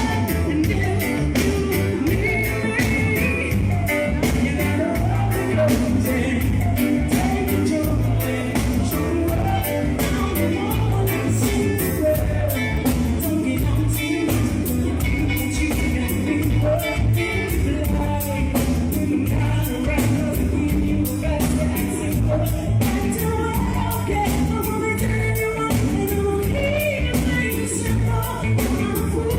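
Live reggae performance: a band playing a steady beat with a lead vocal singing over it.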